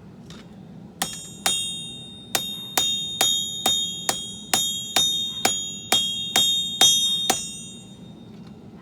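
Hand hammer striking a steel sword blade on an anvil while forging it, about fourteen blows at roughly two a second, each with a bright metallic ring; the ringing dies away after the last blow.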